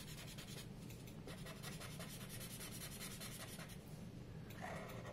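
Faint scratching of a black Sharpie marker on paper in rapid back-and-forth strokes as an area is filled in with ink, pausing briefly about four seconds in.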